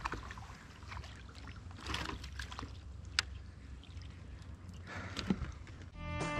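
Water splashing and dripping as a bass is landed in a net beside a kayak, with scattered small knocks and one sharp click about three seconds in. Guitar music starts near the end.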